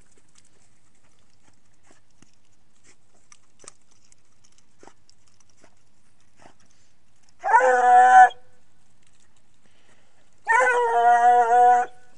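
Young Ariégeois hound baying twice, two long drawn-out cries a few seconds apart, the second longer: the hound giving tongue as it works the scent line of a hare.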